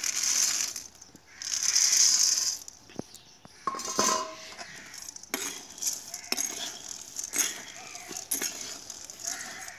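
Dried corn kernels poured from a steel bowl into an iron kadhai of hot salt, pattering in two loud rushes in the first few seconds. Then a steel ladle scrapes and clinks against the pan as the kernels are stirred through the salt at the start of salt-roasting.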